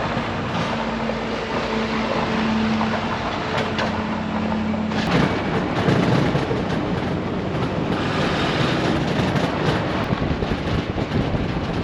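A vehicle or engine running steadily, with a low hum that drops away about five seconds in and rougher, uneven noise after.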